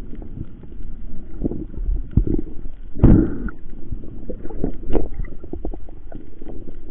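Muffled underwater noise picked up by a camera in a waterproof housing: a steady low rumble of moving water with irregular knocks and clicks, the loudest knock about three seconds in.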